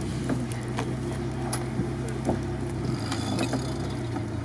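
Lada Niva engine idling steadily while the car sits stopped on a steep climb, with a few short clicks and knocks over it.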